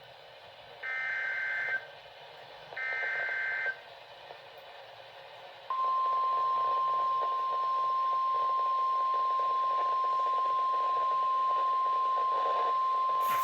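Emergency Alert System broadcast over NOAA Weather Radio: the last two of the three SAME digital header bursts, each a short burst of data tones just under a second long. After a pause of about two seconds the steady 1050 Hz alert tone begins and holds, signalling that an emergency message, here a severe thunderstorm watch, is about to be read.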